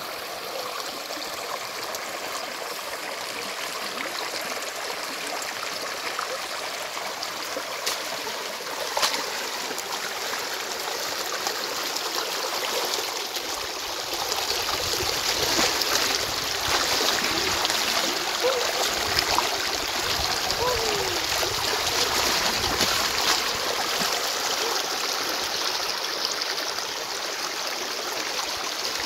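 Shallow stream water running over flat rock. From about halfway through it grows louder, with splashing as a wicker basket is dipped and swished in the current.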